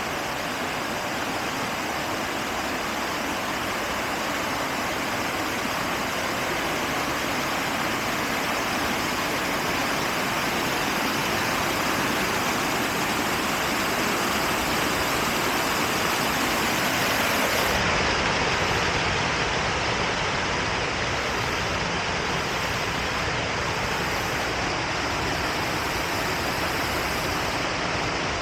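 Steady rush of flowing river water, a constant even noise that swells slightly about two-thirds of the way through.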